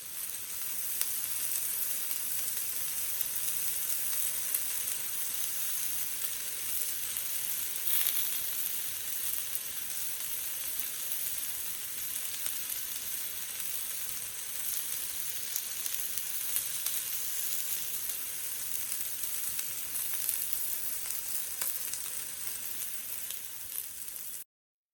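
Food sizzling as it fries, a steady hiss with fine crackles throughout that cuts off suddenly near the end.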